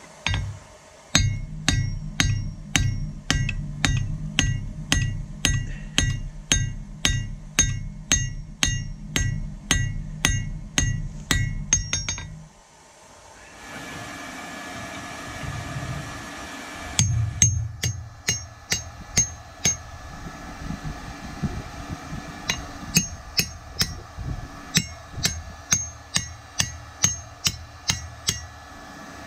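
Hand hammer striking a red-hot steel sword blade on an anvil in steady blows, about two to three a second, each with a high ring from the anvil and steel. The hammering stops for a few seconds midway, then starts again.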